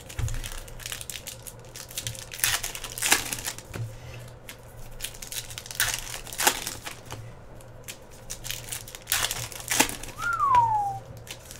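Foil trading-card pack wrappers crinkling and tearing as packs are ripped open and crumpled by hand, in irregular rustles with louder bursts every few seconds. A short falling tone sounds near the end.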